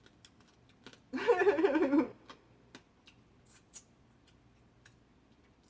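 Mukbang eating noises: scattered small clicks and smacks from cracking and picking at a spicy blue crab. About a second in, a woman's loud, wavering voiced sound lasts about a second.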